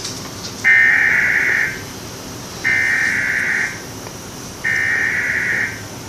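Three Emergency Alert System SAME digital data bursts, buzzy two-tone signals each about a second long with about a second's pause between them.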